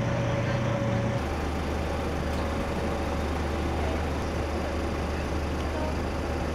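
Idling vehicle engines, a steady low hum over general street noise. About a second in the hum shifts lower and carries on steadily.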